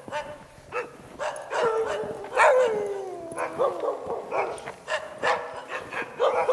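Many huskies barking and yipping over one another, with one long call falling in pitch about two and a half seconds in.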